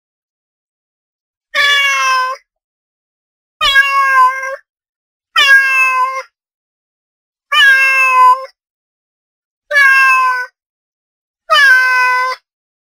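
Domestic cat meowing six times, each meow about a second long with a steady pitch, separated by about a second of silence.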